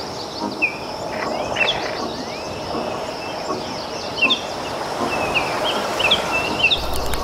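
Outdoor tropical bush ambience: a steady high-pitched insect drone with short bird chirps and whistles repeating throughout, over a background hiss. A low rumble comes in near the end.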